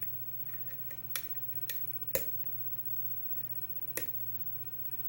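Light metallic clicks of a lock pick working the pin stacks of a six-pin LSDA KIK lock cylinder under tension, with about four sharper clicks spread out among fainter ticks.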